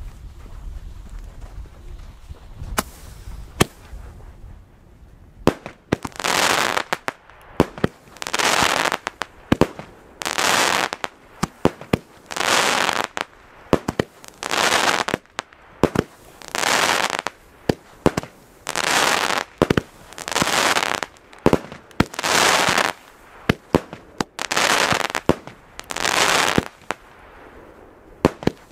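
Fireworks going off: scattered sharp cracks at first, then from about six seconds in a regular run of shots, each a hiss lasting about a second followed by sharp cracks, about one every two seconds.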